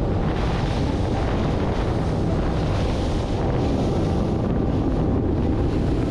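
Wind on the microphone and rushing water as an outboard-powered fishing boat runs at speed, throwing up a wake; a steady, even noise.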